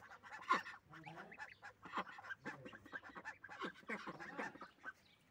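Domestic goslings peeping in many short, quick calls while they peck and tear at a bunch of fresh greens, with small nibbling clicks among the calls.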